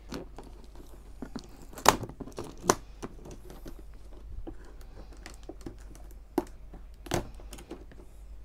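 Scissors snipping through packing tape on a doll box's cardboard and plastic packaging: a string of sharp snips and clicks with plastic crinkling, the loudest about two seconds in and again near seven seconds.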